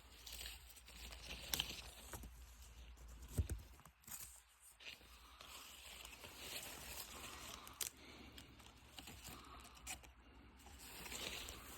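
Footsteps through undergrowth, with rustling of vegetation and scattered sharp crackles, the sharpest about one and a half and three and a half seconds in.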